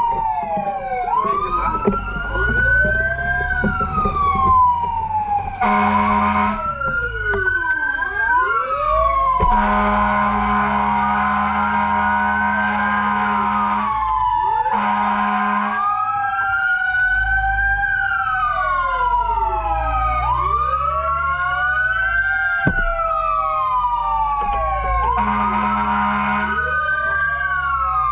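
Several emergency-vehicle sirens wailing at once, their rising and falling sweeps overlapping, over a low engine rumble. A horn sounds four times: short blasts about 6 and 15 seconds in, a long blast from about 10 to 14 seconds, and another near the end.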